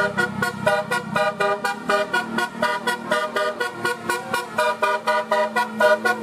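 Bus telolet horn playing a fast tune of short staccato notes, about six a second, over a steady low hum.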